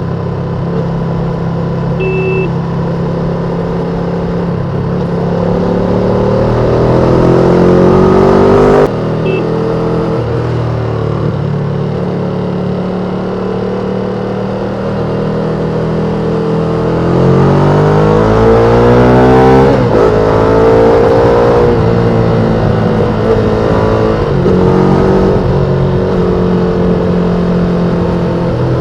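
Ducati Panigale V2's L-twin engine on its stock exhaust, heard from the moving bike. The revs climb for several seconds and drop sharply at an upshift about nine seconds in. After a steadier stretch they climb again and fall back as the throttle closes.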